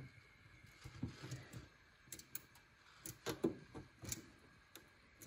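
Scattered small clicks and taps of a thin screwdriver against a gas hob's control valve spindle and panel, as the low-flame (simmer) adjusting screw is being reached for.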